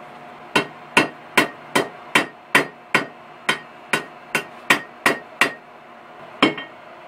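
A hammer tapping a thin 3/32-inch copper wire on an anvil: a steady run of about a dozen firm, light blows, about two and a half a second, each with a short metallic ring. After a pause there is one more blow near the end.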